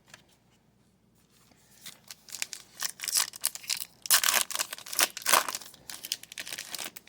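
A foil trading-card pack wrapper being torn open and crinkled: a dense run of crackly rustles starting about two seconds in.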